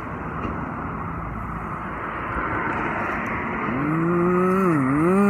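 Steady passing-traffic noise from a street. About two-thirds of the way in, a man's drawn-out closed-mouth "mmm" hum rises, dips and rises again, and becomes the loudest sound.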